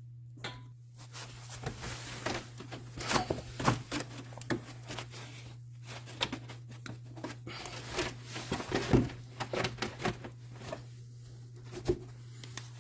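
Irregular clicks, snaps and rustles of hand work with tools and parts, over a steady low hum.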